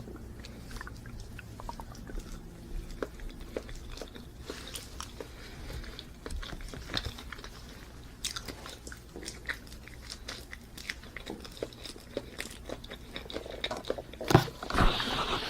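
A person chewing banana close to the microphone: irregular wet mouth clicks and smacks, louder and busier near the end.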